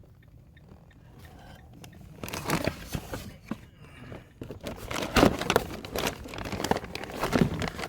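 Close handling noises: irregular crinkling, scraping and knocking that start about two seconds in after a quiet opening, with a few sharper knocks.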